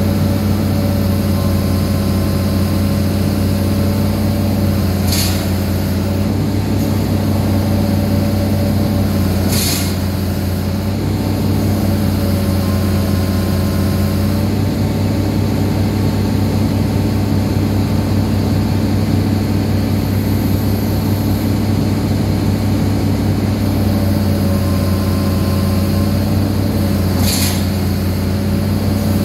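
Excavator's diesel engine idling steadily close by, with three short hissing bursts, about five, ten and twenty-seven seconds in.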